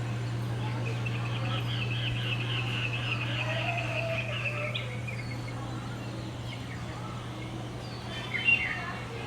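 Birds calling: a rapid high trill lasting a few seconds, then a short loud chirping call with falling notes near the end, over a steady low hum.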